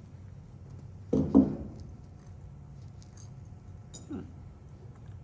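Metal clinking as the parts of a dismantled 9-volt battery are handled: two quick ringing clinks about a second in, then a fainter tap near the end.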